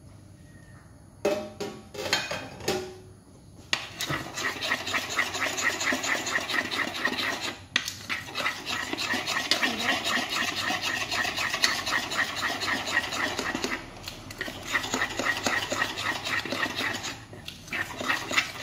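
A few knocks about a second in, then a spoon beating cake batter in a glass bowl: rapid, even scraping strokes against the glass, with brief pauses now and then.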